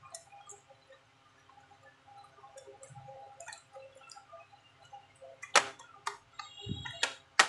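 Hands working a laptop keyboard and its ribbon cable out of the top case: faint light tapping and handling noise, then a few sharp clicks and a knock in the last two seconds as the stuck keyboard is worked loose.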